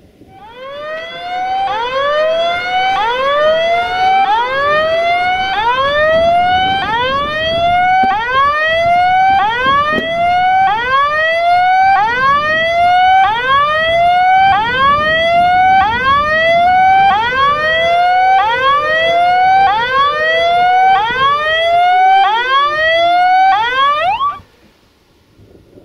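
Level crossing warning signal: an electronic alarm sounding rising chirps about once a second, partly overlapping. It cuts off suddenly near the end.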